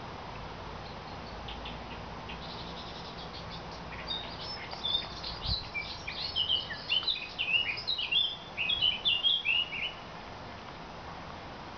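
A songbird singing a quick, varied song of short high chirps and trills, loudest from about four to ten seconds in, over a steady faint background hiss.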